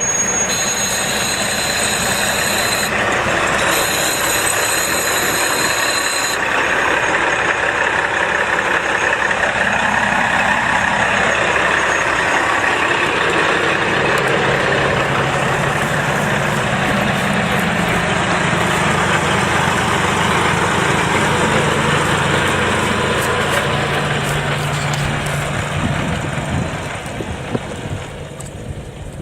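JR East KiHa 40 series diesel railcar running past a level crossing, a loud, steady diesel engine and rail noise that fades over the last few seconds. A high-pitched ringing from the crossing's warning bell sounds over it for the first six seconds, then stops.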